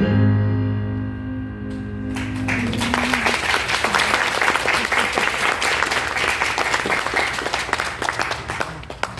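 The final held chord of a sung hymn with keyboard accompaniment dies away. About two seconds in, the congregation starts applauding, and the clapping continues, fading near the end.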